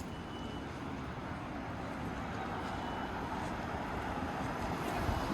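A car approaching along a city street, its tyre and engine noise slowly growing louder.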